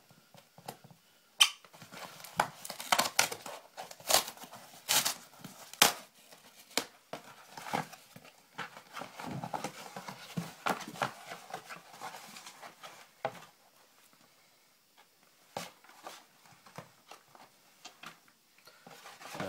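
Packaging being opened and handled by hand: a run of sharp clicks and knocks in the first few seconds, then crinkling and rustling, thinning out to a few isolated clicks near the end.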